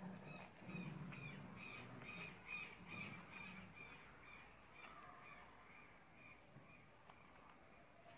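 Faint bird calling over and over, short harsh calls about three a second that fade out about seven seconds in, with a low hum underneath for the first few seconds.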